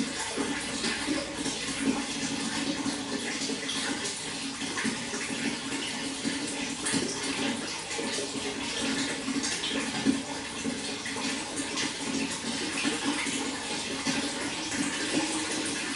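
Running water splashing and bubbling steadily, like a stream of water pouring into a pool.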